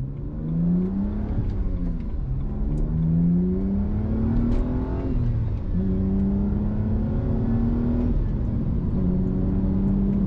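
BMW E90 328i's N52 straight-six through a muffler-delete exhaust with a titanium resonator, accelerating hard through the lower gears. The note climbs, drops at a gear change about a second and a half in, climbs again until another shift around five seconds, then holds fairly steady. At these higher revs the exhaust gives a fairly nice sounding note rather than its low-rpm drone.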